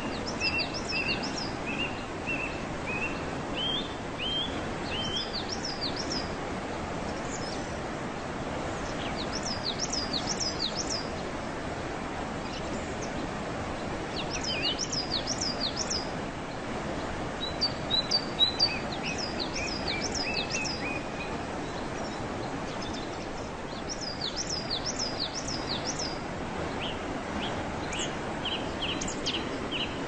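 Waterfall rushing steadily, with small birds chirping over it in short bursts of quick, high, down-slurred notes every few seconds.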